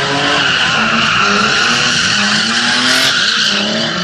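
BMW E30 drifting: its rear tyres squeal without a break while the engine revs climb and fall again and again as the throttle is worked.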